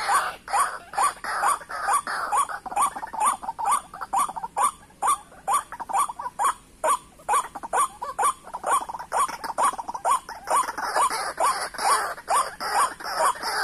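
White-breasted waterhen calling: a fast, even series of short rising notes, about four a second.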